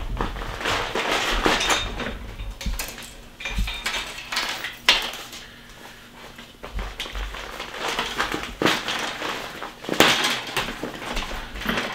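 Hands working a 4moms baby swing's seat: rustling of the fabric seat cover, mixed with irregular clicks and knocks of its plastic frame parts, with sharper clicks about five seconds in and again near ten seconds.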